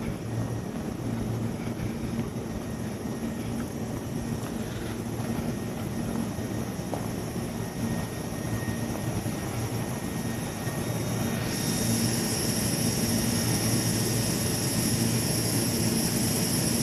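Steady low drone of a Tobu 350 series electric train, with a high-pitched hiss coming in suddenly about two-thirds of the way through.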